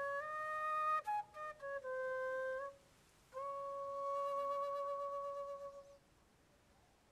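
Solo flute playing a slow melody: a few held and short notes, a brief pause, then one long held note that fades out about six seconds in.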